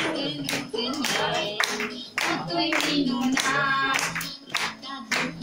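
A group of children singing a song together, with hand clapping in a steady beat of about two or three claps a second.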